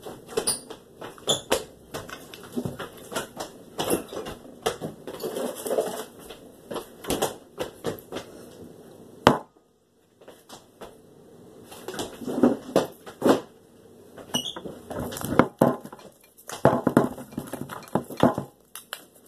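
A cardboard tube of refrigerated biscuit dough being handled, twisted and set down on a table: a dense run of knocks, taps and rustles as she tries to get it open, with one sharp knock about nine seconds in.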